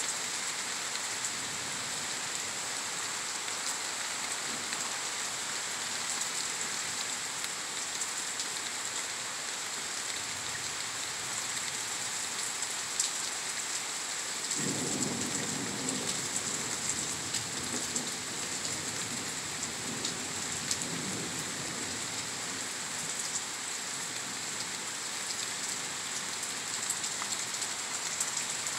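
Heavy rain pouring steadily in a thunderstorm, with a rumble of thunder that breaks in about halfway through and rolls on for several seconds before fading.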